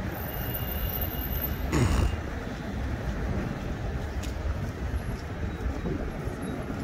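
Steady rumble of city traffic, with a short whoosh falling in pitch about two seconds in.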